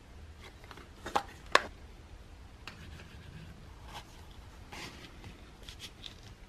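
Handling sounds of a disposable lighter and a stitched leather lighter case: two sharp clicks close together about a second in, then faint scattered rubbing and scraping as the lighter is pushed into the case.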